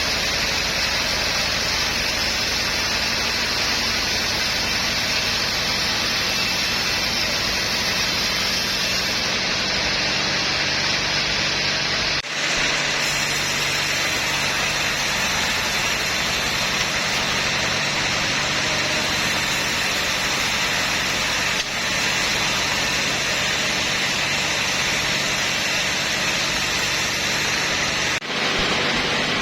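Sawmill machinery running steadily: a constant engine-like hum under a loud, dense hiss, with three brief dips in level.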